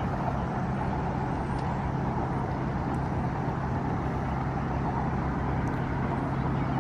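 Steady low drone of a boat's engine out on the water: a constant low hum with an even wash of noise over it.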